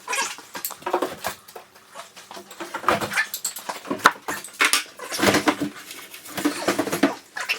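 Wooden shipping crate being lifted off a table saw: irregular knocks, scrapes and creaks of the boards.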